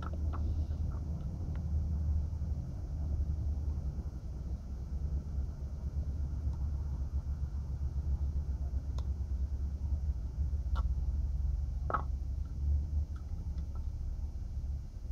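Steady low rumble, with a few faint, short clicks and taps scattered through it.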